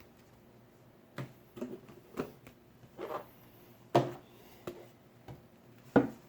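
Board game pieces and cardboard being handled: scattered short knocks and clicks, two louder knocks about four and six seconds in.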